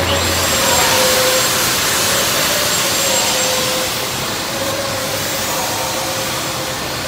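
Stick-welding arc burning while a pad eye is welded onto a steel beam: a loud, steady hiss that sets in at once and eases a little about four seconds in.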